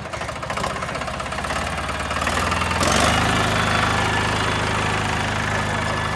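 Captain compact tractor's diesel engine running steadily, then revving up about three seconds in and running on louder.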